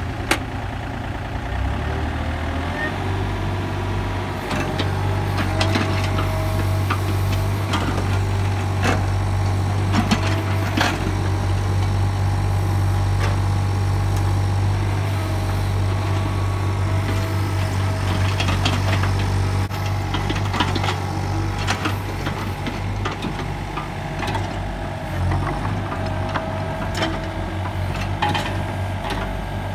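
Yanmar ViO35 mini excavator's diesel engine running under digging load, picking up revs about two seconds in, with a wavering hydraulic whine over it. The bucket knocks and scrapes against stones and clods of soil now and then.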